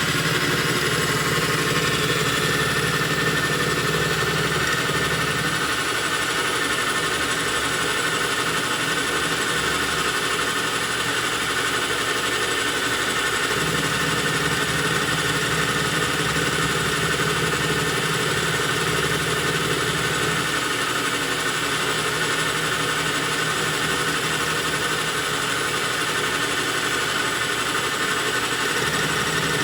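Metal lathe running steadily through a light milling pass on a copper bolt, a steady machine drone with a low hum that fades and comes back twice.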